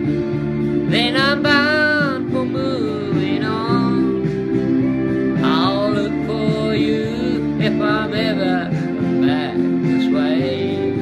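Country-folk music: steady acoustic guitar chords under a melody line that wavers in pitch, with a sung quality.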